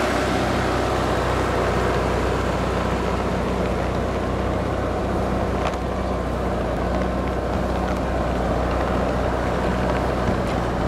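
Tracked dozer's engine running steadily under load as it ploughs through deep snow, holding an even low pitch, with a brief knock a little under six seconds in.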